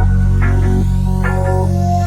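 Background electronic music: sustained synthesizer notes over a steady bass, with new notes struck about every half second.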